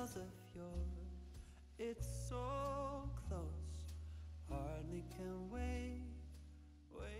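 Background outro music: a light tune with a wavering melody over low bass notes that change about once a second.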